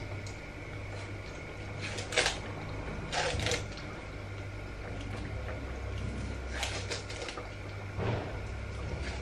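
Hand-peeling the skin off wurstel sausages: a few short rustling, scraping handling noises, over a steady low hum.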